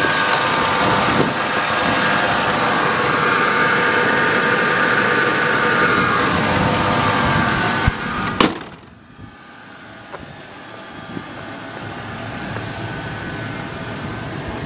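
Ford F-150 pickup engine idling steadily, heard close up in the open engine bay. About eight seconds in there are two sharp knocks, after which the engine's idle is heard much more quietly, from farther off.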